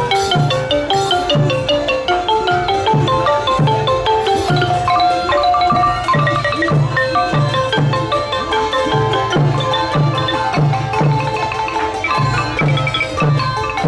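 Traditional Lao ensemble music: a wooden trough xylophone (lanat) played with padded mallets runs a quick stream of melody notes over a steady low drum beat, about two beats a second.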